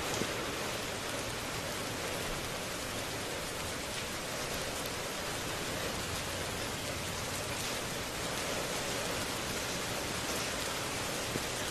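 Heavy rain falling steadily, an even hiss with now and then a louder single drop.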